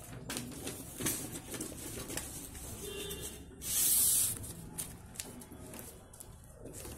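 A sheet of A4 paper being handled and folded: soft crackly rustling with scattered light clicks, and one louder hissing swish about four seconds in.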